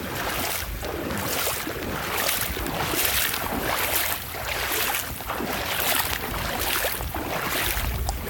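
Legs wading through shin-deep floodwater, the water swishing and sloshing with each stride about once a second. Wind rumbles on the microphone underneath.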